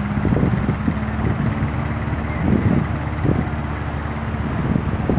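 Wind buffeting the microphone in irregular gusts over a steady engine hum.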